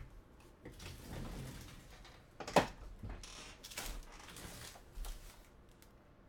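Trading cards and their packaging being handled, with several short rustles and one sharp click about two and a half seconds in.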